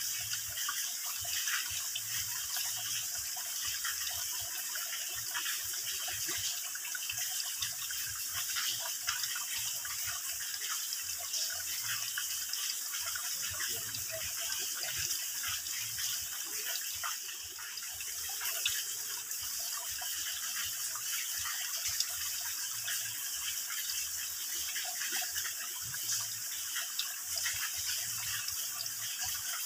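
Water dripping and trickling in many thin streams from a mossy rock overhang into a shallow pool: a steady, dense patter of small splashes.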